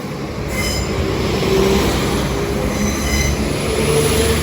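Train running over the level crossing, with a steady rumble and brief high squeals from the wheels twice.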